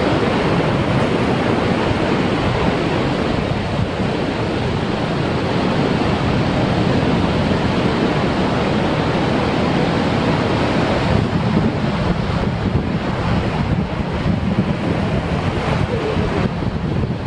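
Heavy ocean surf breaking on a rocky shore and washing over the rocks into a tide pool, a steady loud rush of water. Wind buffets the microphone, more gusty in the second half.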